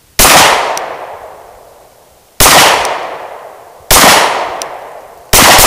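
Four pistol shots from a Gen 4 Glock 19 9mm, spaced unevenly a second and a half to two seconds apart, each with a long echo dying away; the last comes near the end.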